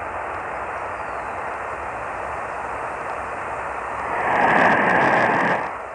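Steady hiss of static on a radio receiver's narrow-band audio, from a station relaying a monthly Emergency Alert System test that has failed. From about four seconds in a louder, harsher burst of noise with a steady tone in it rises, and it drops back just before the end.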